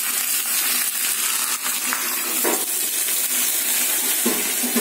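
Tempering of hot oil with mustard seeds and curry leaves sizzling steadily in a small steel pan over a gas flame, then poured into the fish curry near the end.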